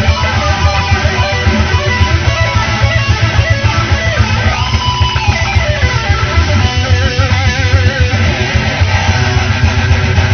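Rock music: electric guitar strumming over a heavy bass and drum beat, with a lead melody that slides and wavers in pitch.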